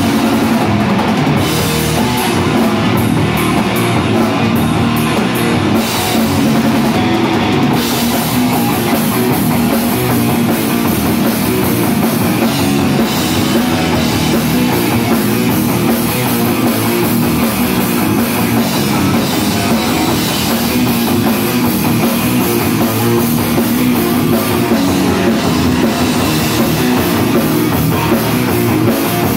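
Metal band playing live: distorted electric guitar and bass over a pounding drum kit, loud and dense without a break.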